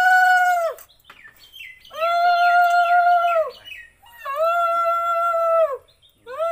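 Conch shell blown in long, steady blasts of about a second and a half each, every one sliding down in pitch as the breath runs out; one blast ends about a second in, two more follow, and a fourth starts just at the end.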